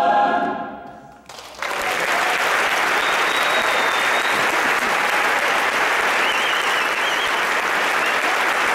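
A mixed choir's final chord released and dying away, then, after a brief hush, audience applause breaking out and continuing steadily.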